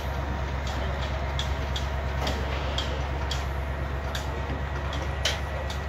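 Steady low drone of running site machinery, with light, sharp clicks about twice a second from hand work on a steel rebar cage.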